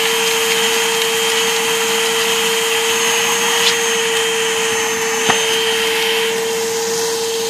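Dirt Devil vacuum cleaner running steadily, its motor giving a constant whine over the rush of air, with a faint click about five seconds in.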